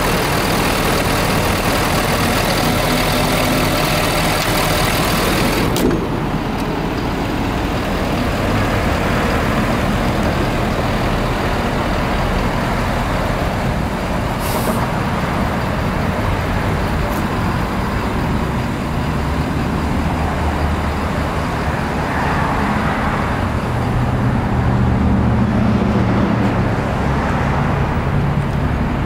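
Ford 6.7-litre Power Stroke V8 turbo-diesel idling steadily, heard close and bright with the hood open. About six seconds in it turns suddenly duller and lower.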